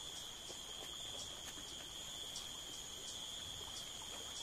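Insects trilling in a steady, high, even tone, with faint regular clicks a little more often than once a second.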